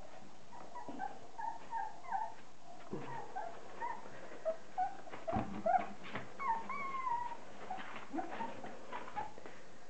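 A litter of month-old Border Collie puppies whining in many short, high, overlapping calls, with a longer sliding call a little after the middle. A knock sounds about halfway through.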